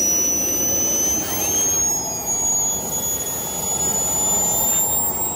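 Small turbojet engines running, a steady rush with a high whine that climbs slowly in pitch as a turbine spools.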